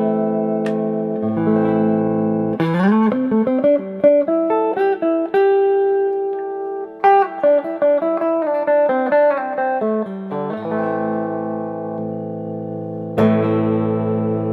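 1958 Harmony H88 Doublet Stratotone solid-body electric guitar with twin DeArmond pickups, played solo. Ringing chords come first, then a quick rising run of single notes and a melodic lead line with one long held note. It ends with chords struck again and left to ring.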